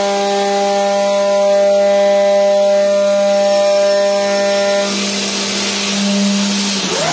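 A CNC aluminium profile machining center's spindle is milling an aluminium profile with an end mill, giving a steady pitched whine. About five seconds in, a hiss joins as the spindle lifts clear of the part.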